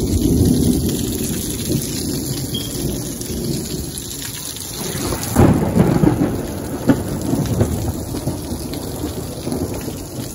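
Heavy rain pouring down and splashing on a concrete patio and lawn, with thunder rumbling through it, loudest just at the start and again about five seconds in.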